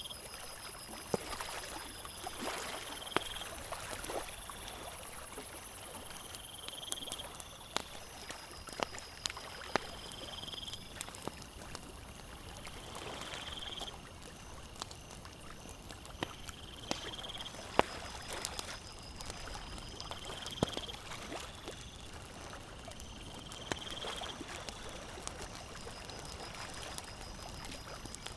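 Campfire crackling, with frequent sharp pops, over a steady wash of lake water lapping at the shore. A short high chirp repeats every few seconds.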